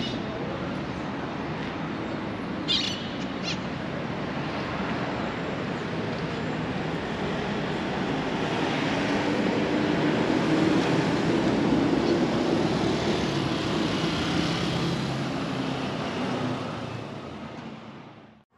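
Street traffic noise, a steady hiss of passing vehicles. It swells about halfway through as a vehicle goes by close, with a low engine hum, then fades out near the end.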